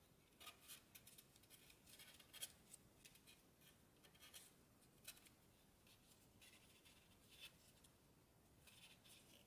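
Faint crinkling and rustling of origami paper being pinched and creased by fingers: short, irregular scratchy crackles.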